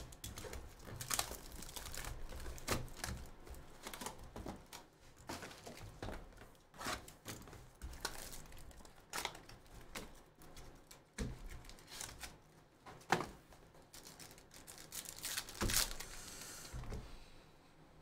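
A shrink-wrapped Bowman's Best trading-card box being opened by hand: plastic wrap crinkling and tearing, with the cardboard box and cards rustling in irregular crackles.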